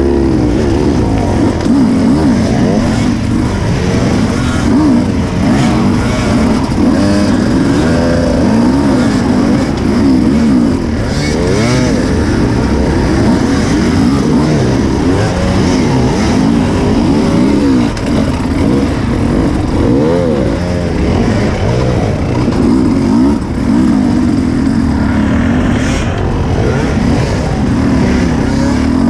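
Several enduro dirt bikes revving together, their engine notes rising and falling and overlapping without a break.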